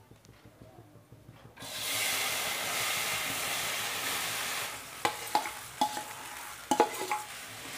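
Soaked sago pearls poured into hot ghee in a kadhai burst into a sizzle about a second and a half in, loudest for the first few seconds, then settling to a lower frying hiss. A few short metal clinks and knocks of the spoon and steel plate come near the end.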